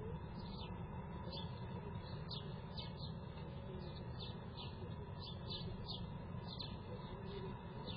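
Short, high bird chirps repeated irregularly about twice a second, over a steady low hiss.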